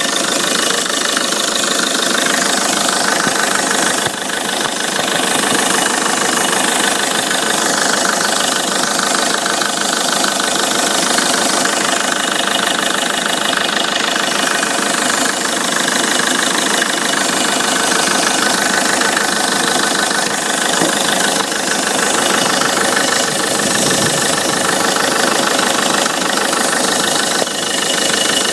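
Peugeot 307 2.0 HDi 136 four-cylinder turbodiesel running steadily at idle, with an abnormal noise that the owner cannot identify.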